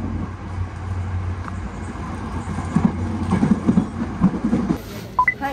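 Hankyu electric train running on the rails with a steady low hum. Past the middle comes a run of clacks as the wheels cross rail joints.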